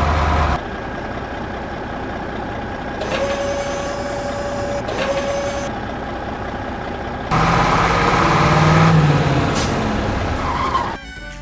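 Vehicle engine noise in abruptly cut segments, with a steady beep-like tone for about two and a half seconds midway. Music starts near the end.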